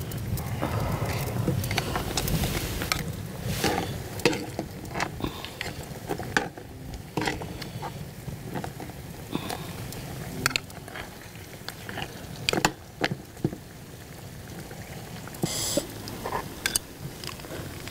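Braised spicy chicken sauce simmering in a wide cast-iron cauldron, with chopsticks and a ladle clicking against the pan and plates at irregular moments as ramen is stirred in and food is served.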